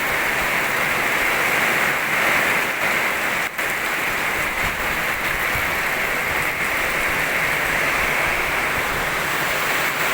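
Strong wind with rain in a storm: a steady rushing noise that does not let up.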